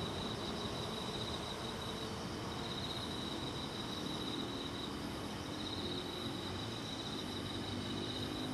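Night insects, crickets by their sound, trilling in a high, steady buzz that comes and goes in stretches of a second or two. Under it is a low, steady rumble from the 485-series express train pulling away.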